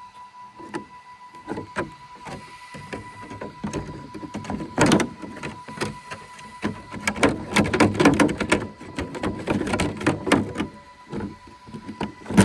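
Hands handling a Traxxas X-Maxx RC truck, with plastic clicks, knocks and rattles as the body shell is fitted on. The handling is busiest in the middle. A faint steady high tone runs underneath.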